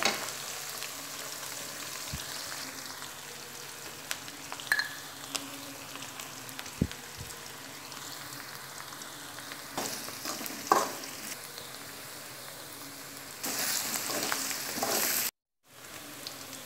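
Curry leaves and garlic sizzling in hot oil in a metal wok, with a metal spatula scraping and knocking against the pan now and then. The sizzle grows louder about three-quarters through, then cuts out to silence for a moment before going on.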